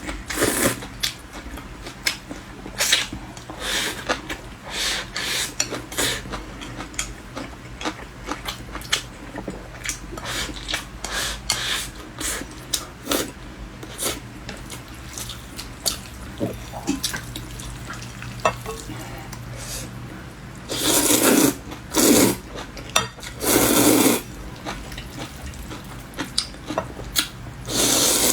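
Close-miked eating of chewy stir-fried starch noodles and rice: wet chewing and small clicks of utensils against a bowl. Louder, longer slurps come about three quarters of the way through and again near the end.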